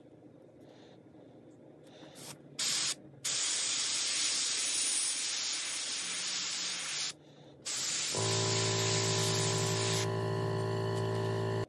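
Airbrush spraying paint: two brief puffs, then a steady hiss of air and paint for several seconds, a short break, and more spraying. A steady low hum joins about eight seconds in.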